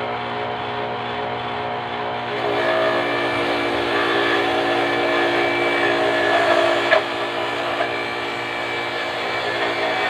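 Small 200 W electric-motor root-crop grater running with a steady whine. About two seconds in it grows louder and rougher as root pieces are fed in and grated, with one sharp click near seven seconds.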